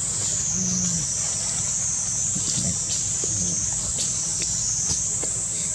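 High-pitched insect chorus, swelling and fading in slow waves about every two seconds, over faint low sounds and a few soft clicks.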